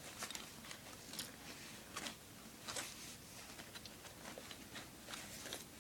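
Faint rustling and a scatter of light clicks as small objects are handled and rummaged through.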